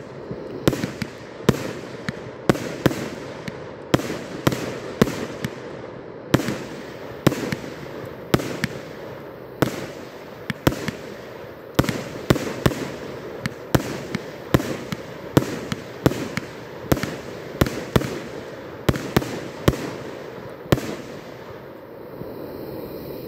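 Consumer firework cake firing a rapid string of shots, each a sharp bang about one to two a second, with crackle from the bursting stars between them. The shots stop about 21 seconds in.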